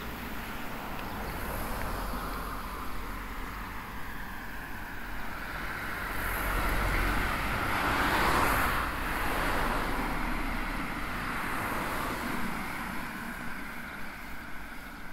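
A car driving past on a road, its tyre and engine noise building to its loudest a little past halfway, then fading away.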